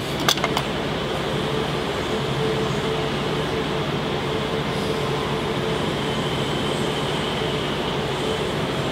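Steady mechanical hum with a low drone, with two sharp clicks just after the start.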